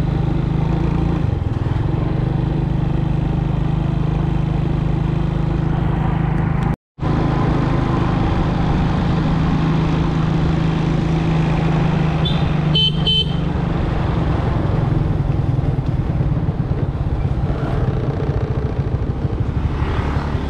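A motor vehicle engine running steadily on the road, with a short double horn toot about thirteen seconds in. The sound cuts out for an instant about seven seconds in.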